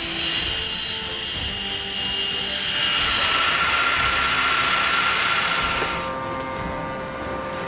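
SCM Minimax Lab 300P combination woodworking machine cutting wood: a loud, steady, hissing machining noise that stops about six seconds in, leaving background music.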